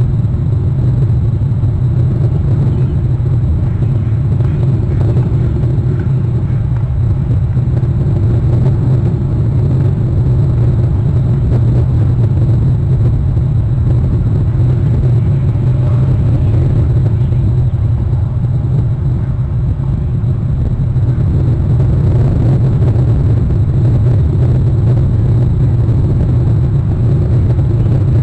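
Steady low rumble at an even loudness, with no distinct calls or knocks standing out.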